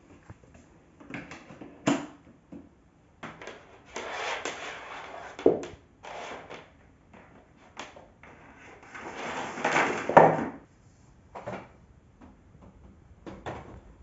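A switched-off Bosch bagless cylinder vacuum cleaner being packed away: scattered knocks and clicks of the hose and plastic body, and two longer rushing rattles as the power cord is pulled and reeled in. The second rattle is the loudest and ends in a sharp clack.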